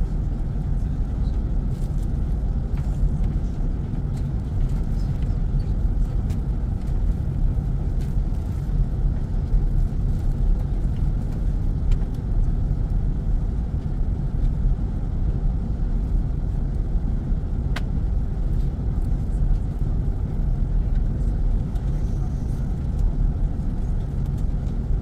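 Steady low rumble of an airliner cabin: engine and airflow noise that holds even throughout, with no change in pitch.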